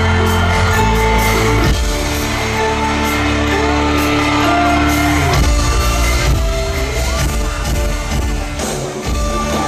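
Live pop band playing through a concert sound system, with a singer's voice and shouts from the crowd.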